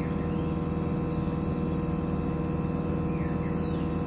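Daikin inverter air conditioner's outdoor unit running with a steady hum. Its inverter compressor is at low speed, drawing about 3.6 amps while it slowly ramps up.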